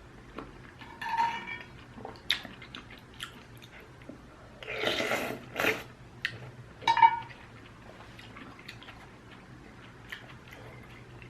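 A person eating ramyun noodles close to the microphone: chewing and wet mouth clicks, with a louder, longer noisy burst about five seconds in.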